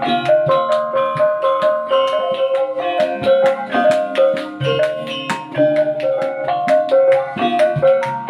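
Javanese gamelan ensemble playing, led by a bonang (a row of small bronze kettle gongs) struck in quick, running patterns. Ringing metallophone keys and low gong tones sound underneath.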